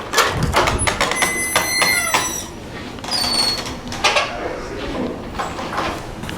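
Creaky door on a Sargent door closer with a Sargent mortise lock: a run of latch clicks and knocks, with a steady high creak lasting about a second, starting about a second in, and a shorter squeak that drops in pitch near the middle.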